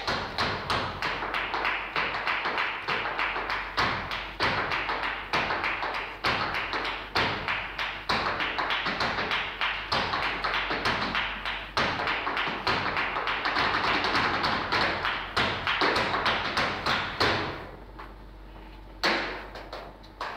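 Flamenco footwork (zapateado): a dancer's shoes striking the stage floor in fast rhythmic runs of taps and stamps. It breaks off about 17 seconds in for over a second, then starts again.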